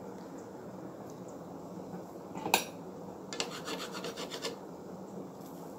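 A pot of black beans simmering with a steady low hiss. About two and a half seconds in there is one sharp clink of a utensil against the pan, then a metal spoon scrapes the pan in a quick run of rasping strokes for about a second.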